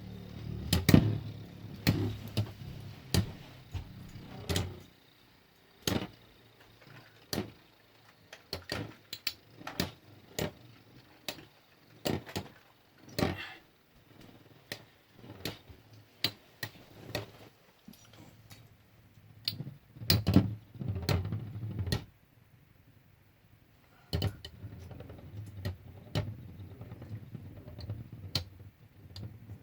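Lightning L-Drago and Dark Wolf Beyblade spinning tops battling in a plastic stadium. Their metal wheels strike each other and the stadium walls in irregular sharp clicks and knocks, some in quick clusters.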